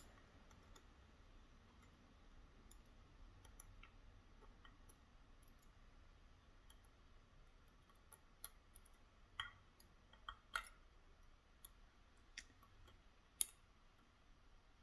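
Faint, irregular clicks and ticks of a lock pick and tension wrench working the pin stacks inside a Schlage Primus lock cylinder, growing more frequent in the second half, with one sharper click near the end.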